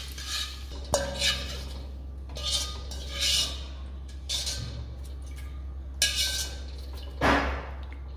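Wire-mesh skimmer clinking and scraping against a steel kadai while lifting fried curry leaves out of the oil, with a few sharp metal knocks.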